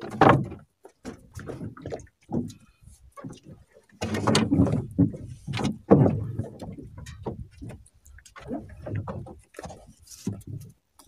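Irregular knocks, bumps and scraping of gear against a small boat's hull as a fishing longline is hauled in by hand, busiest about four to six seconds in.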